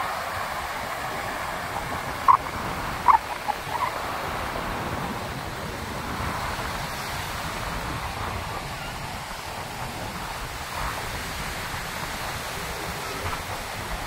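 Waves breaking and washing up a sandy beach in a steady sea wind. A few short, sharp high calls stand out about two to three seconds in.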